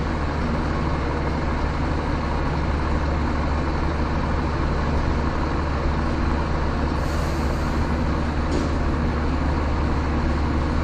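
Scania truck's diesel engine running steadily at a constant low hum, with a brief hiss about seven seconds in.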